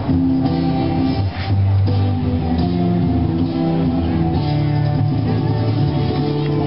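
Music with guitar, played at a steady, loud level.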